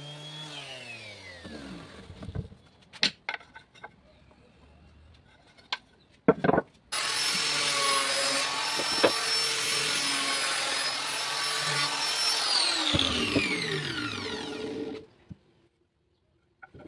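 Angle grinder fitted with a sanding disc winding down with a falling whine, a few sharp wooden knocks, then the grinder starts again about seven seconds in, runs steadily while sanding a small wooden block for about five seconds, and winds down with a falling whine after it is switched off.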